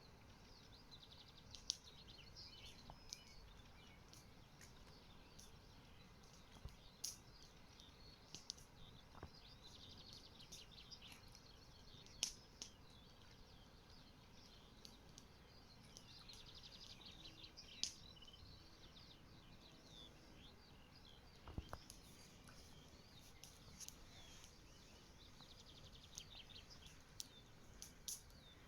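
Faint birdsong: many small birds chirping and trilling, with scattered short, sharp ticks.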